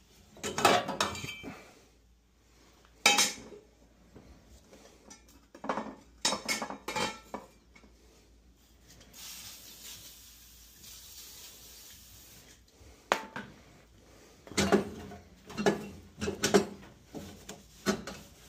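Steel burner tubes from a Burnham ES2 gas boiler clanking and clinking against one another and the boiler's sheet metal as they are pulled out and handled for cleaning, in several bursts of clatter. About nine seconds in, an aerosol can sprays the tubes with a steady hiss for about three seconds.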